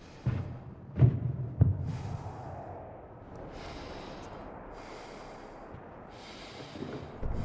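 Film soundtrack: three heavy, drum-like thuds in the first two seconds, then a steady rushing noise.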